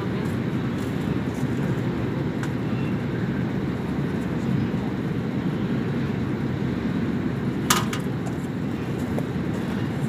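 Steady low rumble of rooftop HVAC air-handling machinery running, with one sharp click about three-quarters of the way through.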